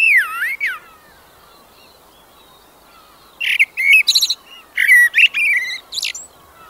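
A songbird singing: a phrase of sliding notes at the start, then a quiet gap, then a run of quick chirps and warbling notes from about three and a half to six seconds in.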